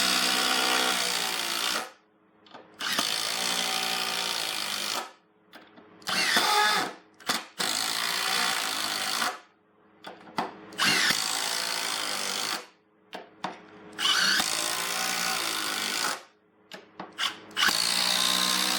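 Milwaukee M18 Fuel Gen 3 impact driver hammering SPAX screws into wood in about seven runs of one to two seconds each, with brief pauses between screws. It is loud, with a rattling hammer tone that rises as each run starts.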